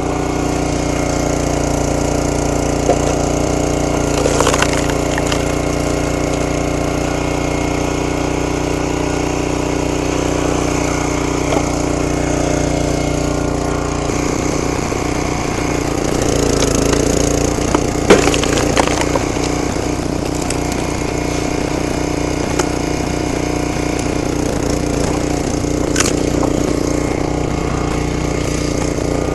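Brute 35-ton log splitter's gas engine running steadily while logs are split, with wood cracking and splintering a few times; the loudest crack comes about 18 seconds in.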